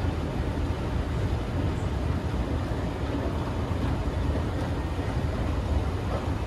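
Escalator running, a steady low rumble with no distinct knocks or changes.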